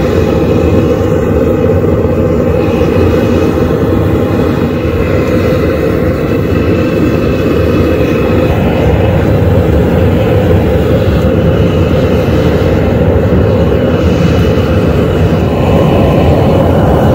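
Vevor portable propane forge's burners running, a loud steady roar of gas flame that grows a little louder near the end.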